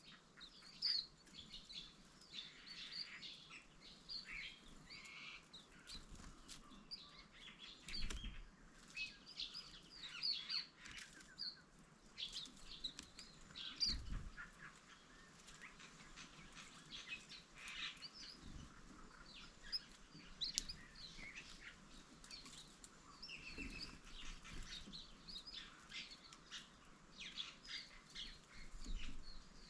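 Green-backed white-eyes chirping and twittering, many short high calls overlapping, with a few low thumps about a third and halfway through.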